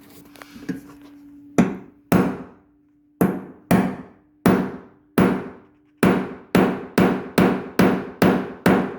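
Hammer striking a wood chisel to cut a hole through a 2x4 stud. A few spaced blows come first, then steady blows about three a second from about six seconds in.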